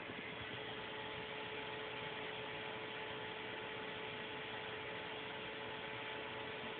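A steady high-pitched whine from a stepper motor on a Prusa Mendel 3D printer. It comes in suddenly and holds one pitch over a constant hiss.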